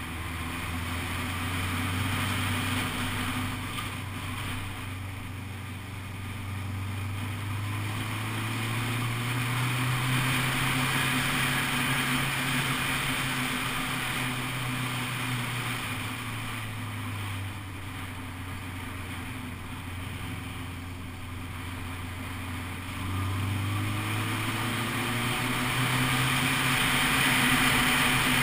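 Honda CBF600 SA's inline-four engine running under way, its note climbing and dropping with throttle and gear changes, with wind rushing over the microphone. The engine pitch rises about a third of the way in, falls around halfway, and climbs again near the end.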